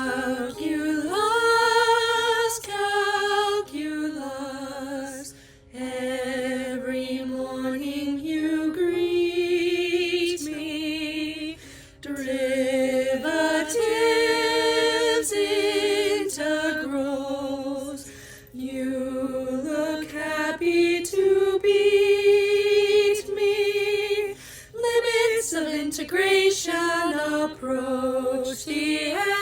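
Female voices singing a cappella, in long held phrases with vibrato and short breaks between them, with no instruments.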